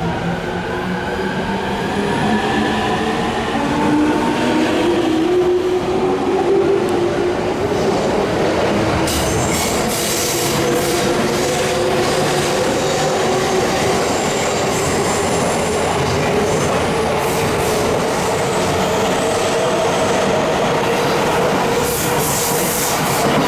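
JR Tokaido Line electric train moving through the station, its traction motors whining and rising in pitch over the first several seconds, then running steadily. From about a third of the way in, bursts of high-pitched hissing and squealing from the wheels and brakes come and go.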